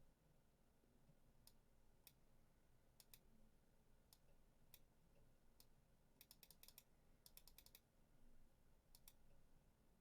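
Near silence with faint clicking at a computer: scattered single clicks, and two quick runs of clicks a little past the middle.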